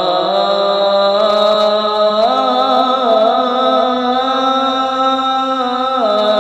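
A male muezzin chanting the adhan, drawing one syllable out into a long ornamented melisma. The held pitch wavers and shifts to a new note about two seconds in and again near the end.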